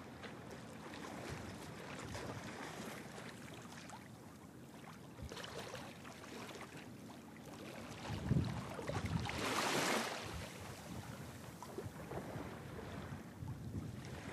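Outdoor wind buffeting the microphone, a steady rushing noise. A stronger gust starts with a low rumble about eight seconds in and rises to a louder hiss near ten seconds before settling.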